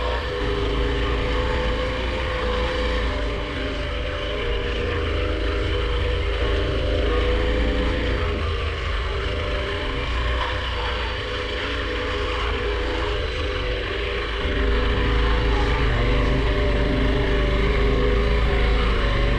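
KTM 1190 Adventure R's V-twin engine running steadily under way, over a low rumble. It gets louder about fourteen seconds in.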